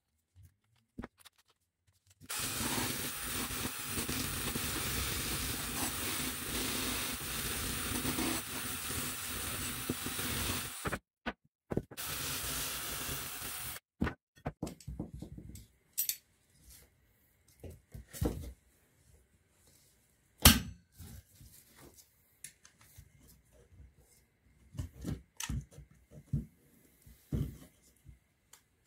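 A power drill spinning a wire brush against a rusty steel motor end cover, a steady scrubbing whirr for about nine seconds starting a couple of seconds in. After a short pause come scattered clicks and knocks of metal parts being handled and set down on the bench, the loudest a sharp knock about twenty seconds in.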